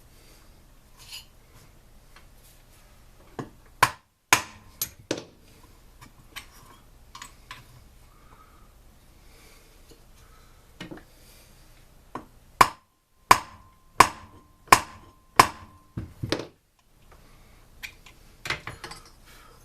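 Sharp metallic taps and knocks from hand tools on small engine parts during disassembly. A little past the middle comes a run of about five evenly spaced ringing strikes, one every two-thirds of a second or so.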